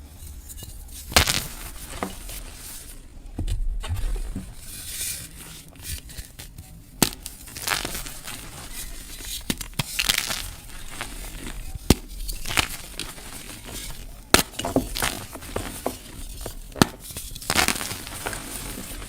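Close-miked crushing of a plain gym chalk block mixed with crisp crackling of dried flower petals. The sound is irregular: sharp cracks every second or two, with softer crumbling between them.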